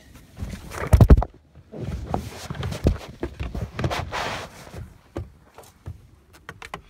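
Handling noise: knocks, scrapes and rustling as a hand-held phone is moved about inside a car, with a cluster of heavy thumps about a second in and a few light clicks near the end.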